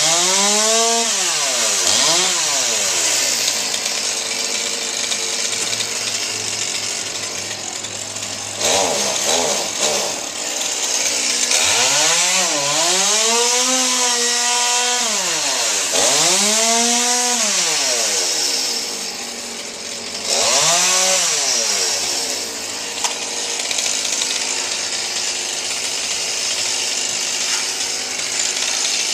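Two-stroke chainsaw revving up and down about five times in short bursts, with lower running between the revs.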